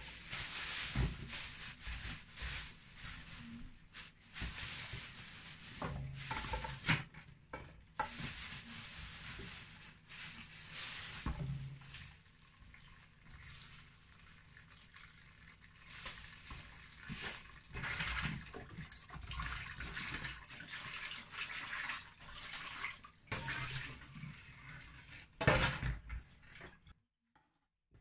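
Kitchen tap running into a stainless steel sink, water splashing on and off as vegetables are rinsed by hand in a colander and a frying pan, with occasional knocks of metal. A sharp knock comes near the end, and the sound cuts off suddenly just after.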